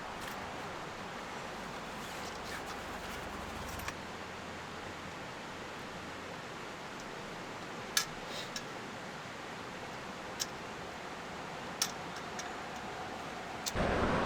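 A steady, even hiss with a few faint, sharp clicks about eight, ten and twelve seconds in.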